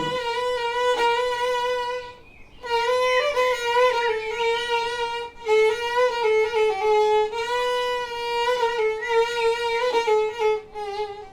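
Solo violin playing a melody of held notes with small slides between them, pausing briefly about two seconds in.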